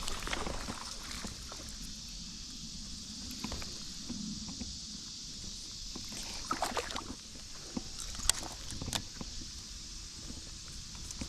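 A steady high insect chorus with wind rumbling on the microphone. Scattered rustles run through it, and two sharp clicks come near the end.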